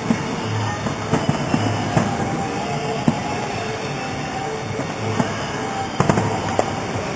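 Fireworks display heard from a distance: scattered sharp bangs and crackles, several in quick succession about six seconds in, over a steady rumbling background.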